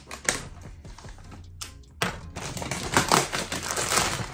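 Blue plastic mailer bag being torn open by hand, crinkling and crackling, with a sudden louder burst of rapid tearing and rustling about halfway through.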